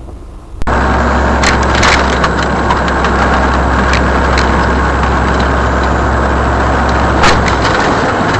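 Truck running at highway speed, heard from inside the cab: a steady low engine drone over loud road noise, with a few sharp knocks or rattles, once about a second and a half in, again at two seconds and once near the end. It cuts in suddenly under a second in.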